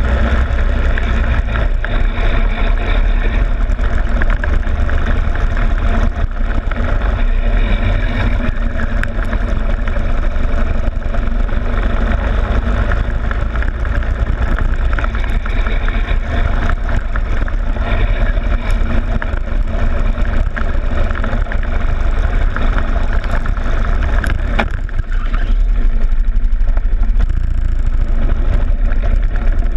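Go-kart engine running under load at speed, picked up by a camera on the kart's loosely fixed front plastic fairing, with wind noise and rattling clicks. About 25 seconds in the engine note drops and deepens as the kart slows into a tight hairpin.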